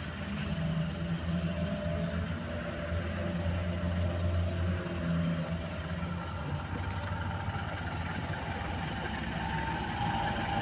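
Diesel-electric locomotive's engine running at idle, a steady low hum, while it waits to depart. Near the end a held horn tone begins to sound.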